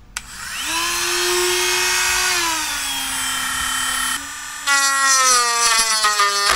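Dremel rotary tool with a router attachment switched on: its motor whine rises to speed, then drops to a lower pitch about two and a half seconds in. Near the end it grows louder and wavers as the router bit cuts into wood.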